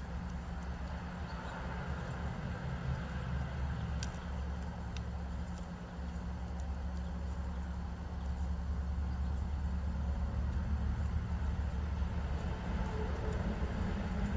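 Steady low rumble of distant road traffic, with two faint sharp clicks about four and five seconds in.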